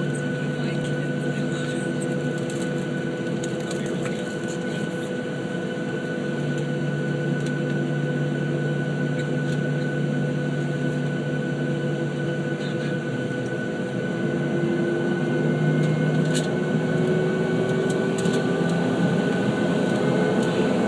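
Jet airliner's engines at low power heard inside the cabin while it waits or taxis for departure: a steady hum of several tones over a noisy rush. About three-quarters of the way through it gets louder and one tone starts rising in pitch as the engines speed up.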